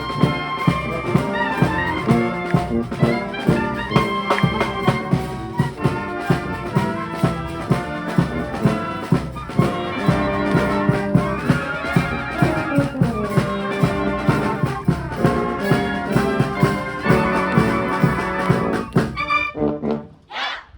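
High school wind band playing a march-style tune, trumpets and trombones over a steady drum beat; the music stops shortly before the end.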